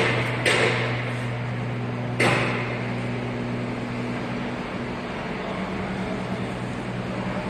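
Steady hum of workshop machinery with a broad noise bed, broken by two sharp bangs, one just after the start and a louder one about two seconds in.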